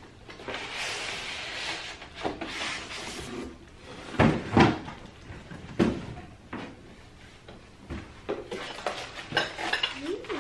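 Cardboard box and styrofoam packing inserts being handled during unpacking: rustling and scraping, then a few sharp knocks about four to six seconds in, with smaller clicks and taps after.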